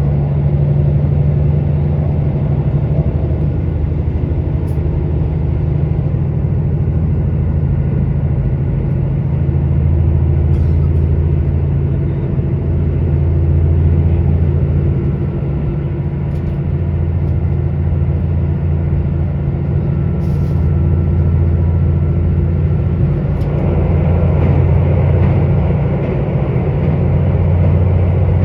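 Underfloor Cummins diesel engine of a KiHa 85 diesel railcar running at speed, heard inside the passenger car as a steady low drone over the rolling noise. Its pitch shifts a little, and about three-quarters of the way in a rougher running noise grows louder.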